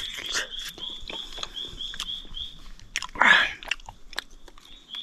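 Biting into and chewing a chunk of wild honeycomb, with many small wet clicks and crunches and a louder mouth noise about three seconds in. A high chirp repeats about three times a second behind it.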